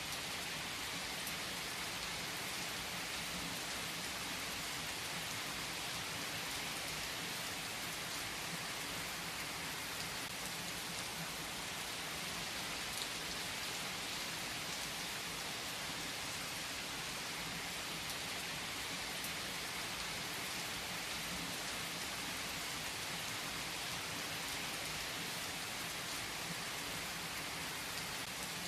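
Steady rain falling on a surface, an even hiss with scattered drops ticking through it.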